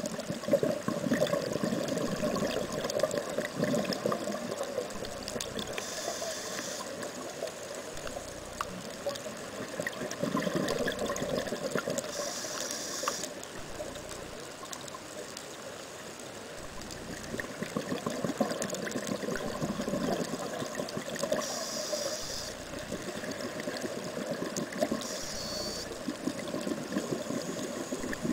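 Scuba diver breathing through a regulator underwater: bubbly gurgling of exhaled air, broken about four times by a short hiss of inhalation.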